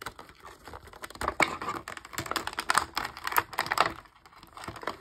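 Thin clear plastic blister packaging of a toy being handled and pried at: quick irregular clicks and crinkles of the plastic, busiest from about a second in, easing off near the end.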